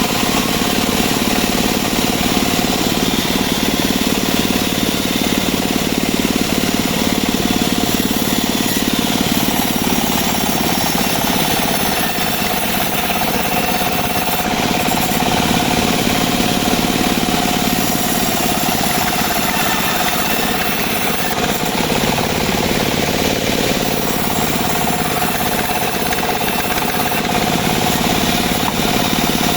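Engine-driven portable band sawmill running steadily, its blade sawing albasia wood, with a constant whine over the engine.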